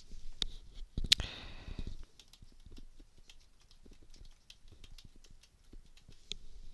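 Typing on a computer keyboard: a run of quick, uneven key clicks, with a louder knock and a brief rustle about a second in.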